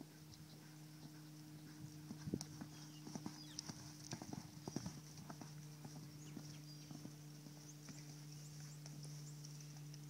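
Hoof beats of a horse moving about: a run of irregular knocks from about two to five seconds in, fainter and sparser afterwards.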